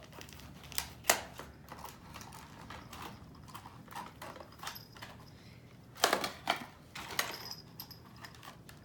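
Scissors snipping at plastic toy packaging: scattered sharp snips and clicks, a loud one about a second in and a cluster of several around six to seven seconds in.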